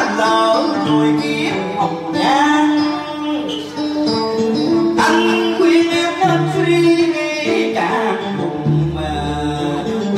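Cải lương theatre music played live: plucked strings carry a melody with bending, sliding notes, and a voice sings along.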